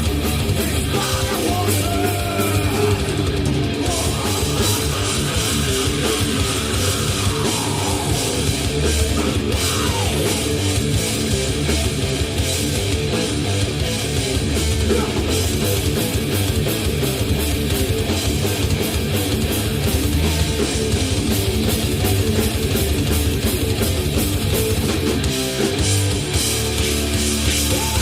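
Heavy rock band playing live at full volume: distorted electric guitars and bass over a driving drum kit.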